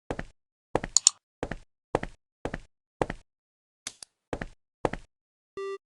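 A run of about nine sharp knocks, roughly two a second, followed near the end by one short, steady beep.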